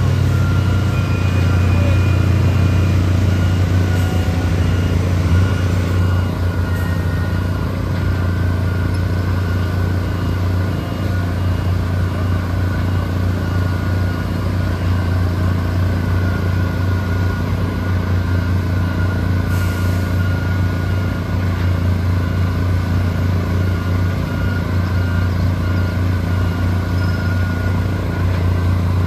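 Heavy engine of concrete pumping equipment running steadily at a constant speed, a loud, even low hum with a faint steady high tone above it.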